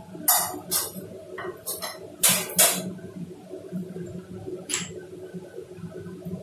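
A metal ladle clinks against a stainless steel pot, six sharp clinks in three quick pairs over about two and a half seconds, then one more about five seconds in, over a steady low hum.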